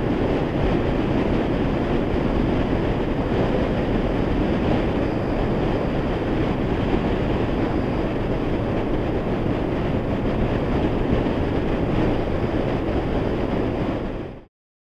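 Steady rush of wind and road noise with the engine of a Honda VFR800 motorcycle cruising at a constant speed, heard from a camera on the bike. It cuts off abruptly near the end.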